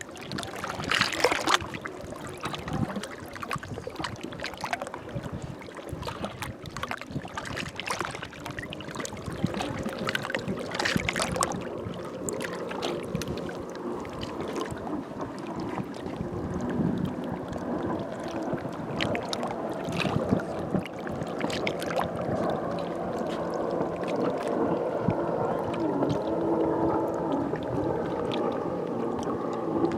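Small waves lapping and splashing against rocks at the shoreline. From about halfway through, the steady hum of a motorboat engine comes in under the water, its pitch slowly drifting lower.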